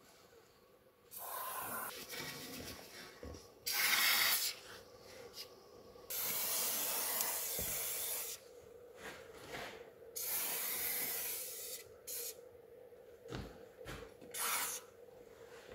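Fluid Film lanolin rust-proofing oil being sprayed into a car's front wheel arch in about six separate hissing bursts, each half a second to two seconds long, with pauses between. The loudest burst comes about four seconds in.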